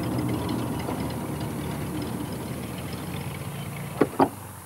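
Piston engine of a light single-engine propeller plane running steadily as it rolls on the ground after landing, its drone slowly fading. Two sharp knocks come about four seconds in.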